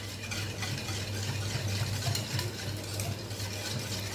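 Wire whisk beating coconut milk with sugar and cornflour in a stainless steel bowl: a steady swishing of the liquid with light clinks of the wires against the steel, mixing the cornflour and sugar in before the pudding is cooked.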